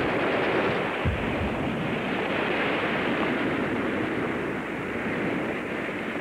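Audience applauding as one steady, dense clatter that eases off slightly toward the end, with a single knock about a second in.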